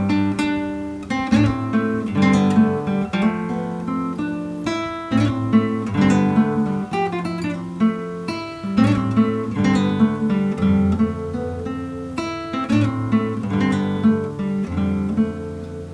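Solo classical guitar playing an instrumental piece: a stream of plucked, ringing notes over sustained bass notes.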